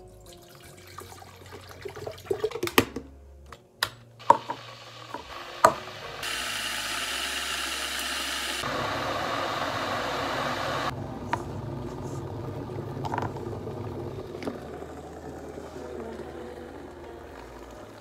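Water running from a tap into a small kettle to make tea, loud and steady for about five seconds and changing in tone partway through. Before it come several sharp clicks and knocks of the kettle and tea things being handled.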